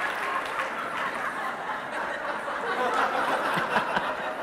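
A hall audience chuckling and laughing together, with murmuring and scattered claps.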